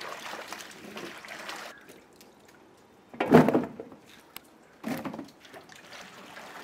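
Hands sloshing and swishing peeled raw plantains around in a large metal basin of water to wash them. There is a loud splash a little over three seconds in and a smaller one about five seconds in.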